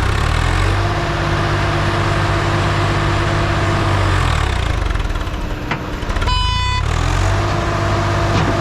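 A vehicle engine running, its pitch rising and holding, dropping about four seconds in and rising again near the end, with a short high beep about six seconds in.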